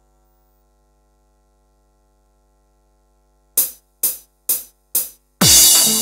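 Korg Pa2X Pro arranger keyboard. After a few seconds of faint steady hum, it plays four evenly spaced count-in clicks a little under half a second apart. Then an electronic style pattern with drums and bass starts in full, opening on a heavy hit with a falling low boom.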